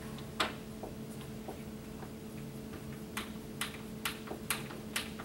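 Cross-point (Phillips) screwdriver driving small black screws into a length of molding by hand: a single sharp click near the start, then a regular run of sharp clicks about two a second through the second half.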